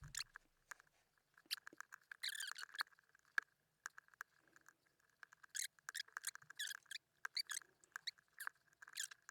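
Faint metallic clicking and scraping of lock picks working the pin stack of an ACE 54541 brass padlock under tension, in short irregular bursts of ticks.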